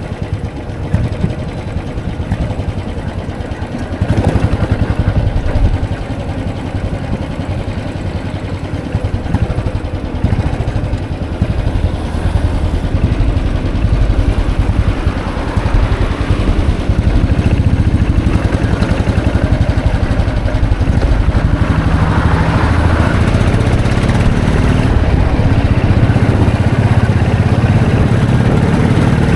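Royal Enfield Classic 500's single-cylinder engine running on the move. It gets louder about four seconds in and rises in pitch near the end as it speeds up.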